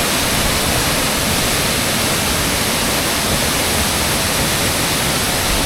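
Waterfall rushing: a loud, steady sound of heavy water coming down the ninth tier of Khao Soi Dao Waterfall.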